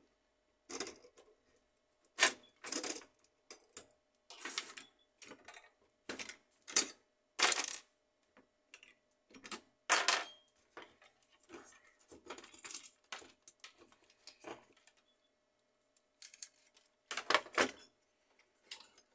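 Metal and plastic parts of an HP LaserJet 1300 fuser assembly being taken apart and handled: irregular clicks and clinks of small metal brackets and springs, the loudest about 2, 7 and 10 seconds in and a cluster near the end.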